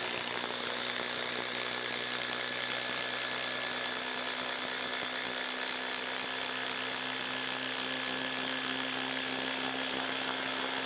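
Ryobi One+ HP impact driver hammering steadily as it drives an 8-inch TimberLOK screw into a wooden log, at an even pitch and level throughout.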